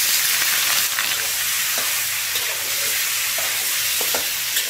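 Raw pork rib pieces sizzling in hot oil in a wok as they sear, the hiss loudest in the first second. A metal spatula scrapes and knocks against the wok a few times while the pieces are stirred.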